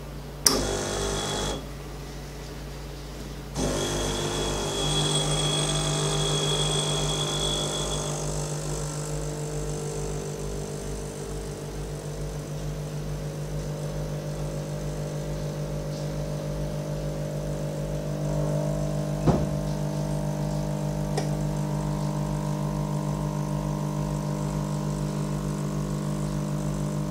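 Ferratti Ferro FCM 3605 espresso machine's vibratory Ulka pump pulling a shot. A click and a brief run of the pump come about half a second in, then a pause of about two seconds, then the pump hums steadily as the espresso flows. A single sharp click comes about two-thirds of the way through.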